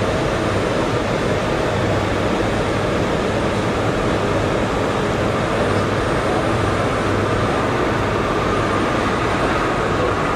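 Kawasaki R211T subway car running between stations, heard from inside the car: a steady rumble of wheels on rail with running noise from the propulsion. A faint whine grows a little stronger near the end.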